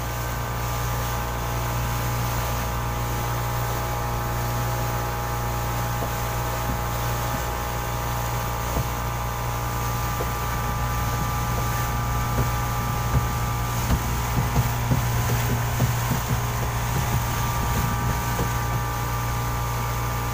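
Yamaha 40 hp outboard motor running steadily at cruising speed, a constant hum with a steady whine above it. Irregular light knocks come through the middle stretch.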